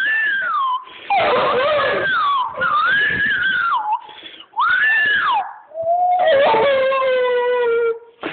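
Black Labrador puppy howling: a run of high, wavering howls that swoop up and down in pitch, broken by short pauses, then one longer, lower howl that slides downward near the end.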